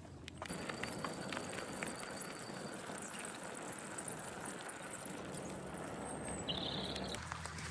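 Bicycle rolling over a rough path: a steady crunching tyre noise with faint ticking. A low engine hum comes in near the end.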